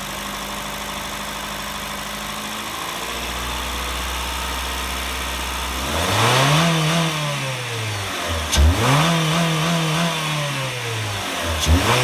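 2008 Honda Fit 1.5-litre four-cylinder engine idling steadily, then revved up and let fall back about three times in the second half. The engine has a rattle/knock/tapping noise that the owner suspects is piston slap.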